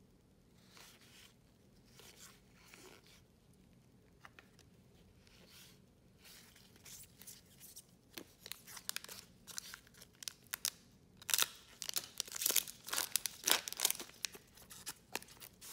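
Faint rustling of cards being handled, then a trading card pack's wrapper torn open and crinkled in the hands. The crackling grows denser and is loudest in the last few seconds.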